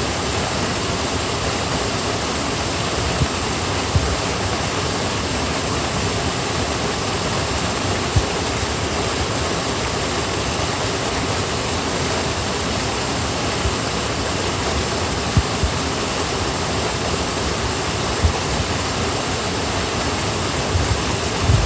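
Steady rushing water, like a waterfall or fast stream, with a few brief low thumps every few seconds.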